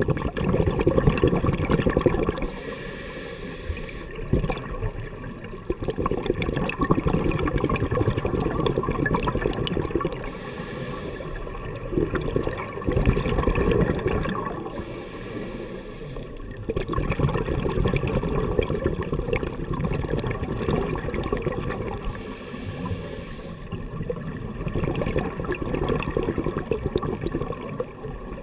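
Scuba diver breathing through a regulator underwater: long bubbling, gurgling exhalations alternating with short hissing inhalations, about four breaths.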